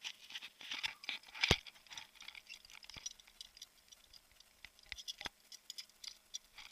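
Crackling rustle and a few sharp knocks from a handheld camera being handled, the loudest knock about one and a half seconds in.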